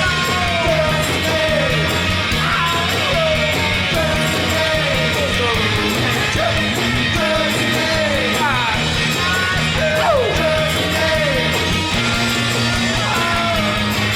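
Rock song with a singing voice whose phrases slide down in pitch, over a steady drum beat.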